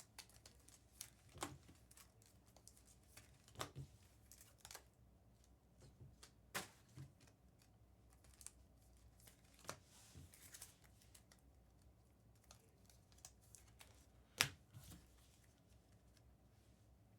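Faint handling of trading cards: scattered light clicks and taps over near silence, the sharpest one near the end.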